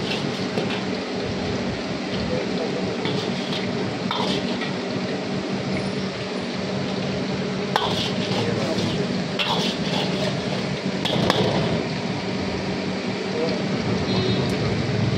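Long steel ladle stirring and scraping chilli chicken in a large steel wok, with sharp clinks of the ladle against the pan every second or two over a steady hiss. Near the end, a ladle of liquid is poured into the wok.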